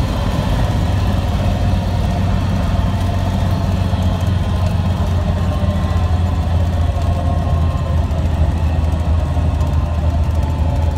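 Cessna 206's six-cylinder piston engine and propeller running steadily at low power, heard from inside the cabin as the plane rolls along the runway.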